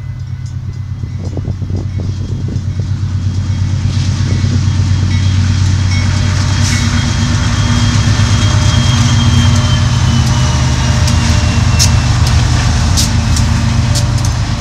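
Several BNSF diesel locomotives passing close by, their engines giving a loud, steady low drone that builds over the first few seconds, with sharp clicks and rattles of the wheels on the rails in the second half.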